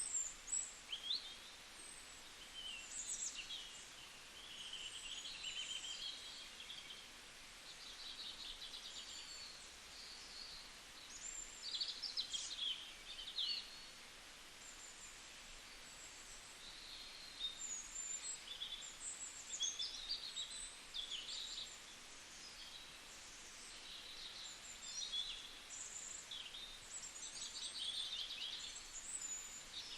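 Several small birds chirping and trilling, with short calls overlapping throughout, over a faint steady outdoor hiss.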